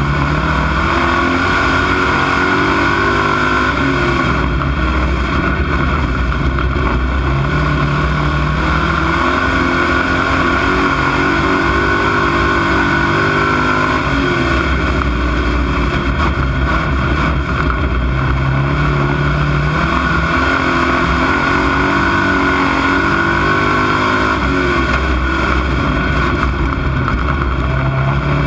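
Dirt-track stock car's engine heard from inside the cockpit, loud throughout, climbing in pitch under throttle and then dropping back as the driver lifts. This happens about three times, the rhythm of laps around a short oval: on the gas down the straights, off into the turns.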